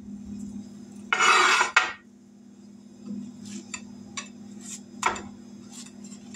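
A metal spatula scraping and clattering against a skillet and a china plate: one loud scrape about a second in, then a few light clinks and taps as fried cornbread fritters are shifted on the plate, over a steady low hum.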